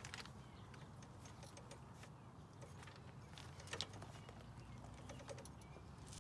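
Faint, irregular metallic clicks and taps from hand work on the truck's front coilover and suspension parts, a few sharp ones standing out over a low steady background.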